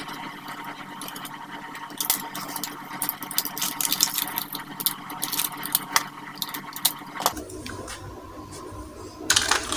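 Small plastic clicks and knocks as the body shell of a toy RC car is worked loose and lifted off its chassis after the screws come out, over a steady hum. A louder clatter comes near the end.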